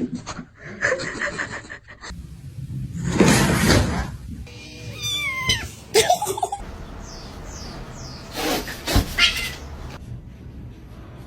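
Pet cats meowing in a series of short clips, with sliding, wavering calls about five seconds in, between other brief noisy animal sounds and some background music.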